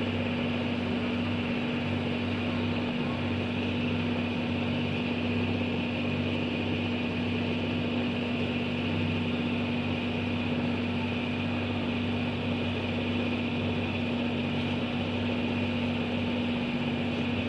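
Outrigger boat's engine running at a steady speed, a constant drone with an even hum.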